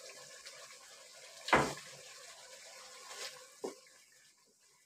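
Potato curry gravy bubbling in a kadai while a wooden spatula stirs through it. One loud sharp knock about a second and a half in and a couple of lighter knocks later; the sound fades away near the end.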